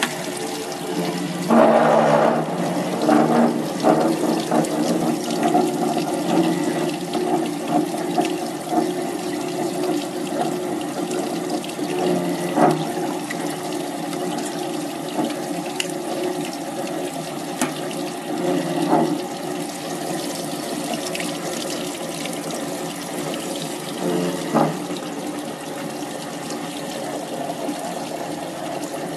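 A small desktop fish-skinning machine runs with its water spray rushing steadily over the skinning roller and a steady motor hum beneath. There are several short, louder surges of splashing, the first about two seconds in.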